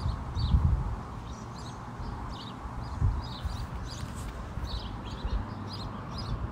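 Small birds chirping repeatedly in short high notes, over a steady background hiss, with a few dull low knocks about half a second and three seconds in.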